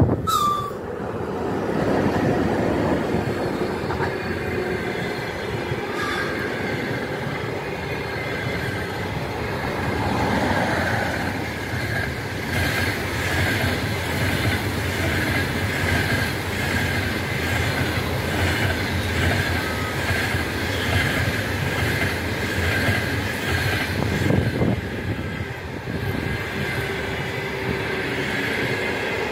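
An EP1M electric locomotive at the head of a passenger train passes close by, loudest just at the start, and then the long line of passenger coaches rolls past. The wheels rumble steadily on the rails with a rhythmic clickety-clack over the rail joints, and from about twelve seconds in a steady high wheel squeal runs on top.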